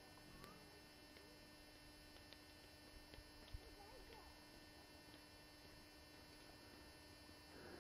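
Near silence: a faint steady electrical hum, with a few faint clicks and one short low knock about three and a half seconds in.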